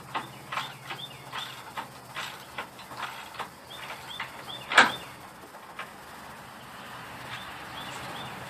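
Rhythmic metallic clicking, about two to three clicks a second, from hand-tool work on a gate hinge's bolt. The clicking fades out about three and a half seconds in, and one sharper clack follows near five seconds. Small birds chirp now and then.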